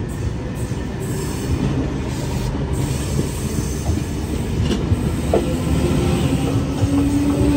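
Double-deck V-set intercity electric train rolling along the platform, its wheels rumbling on the rails, with a squealing tone building toward the end.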